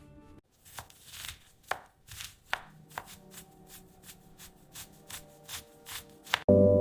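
Knife chopping on a cutting board in a quick, fairly even rhythm of about two to three cuts a second, over faint sustained tones. Near the end a gong is struck loudly and rings on.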